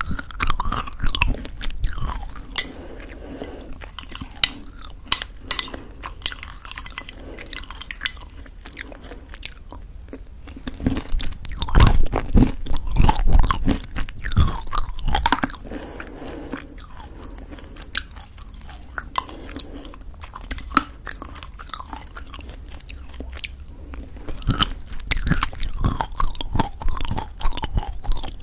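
Close-miked chewing of homemade granola mixed into thick yogurt: irregular crunching and crackling, with a louder stretch of crunches around the middle.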